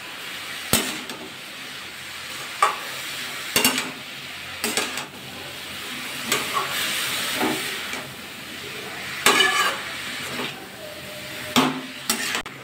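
Metal spatula scraping and knocking irregularly against a metal kadai as shredded ash gourd is stirred and mixed, over a steady sizzle of the vegetable frying in oil.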